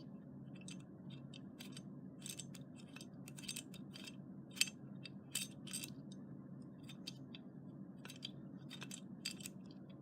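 Small, irregular metallic clicks and taps of screws and deadbolt lock hardware being handled and fitted, over a steady low hum.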